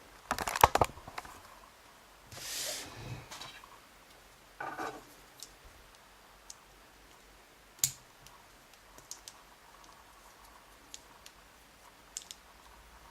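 Small metal clicks, taps and short scrapes as the Lockwood V7 lock and its parts are handled while it is being taken apart. The loudest is a quick cluster of clicks about half a second in, followed by a rubbing scrape, a sharp single click around the middle, and scattered faint ticks.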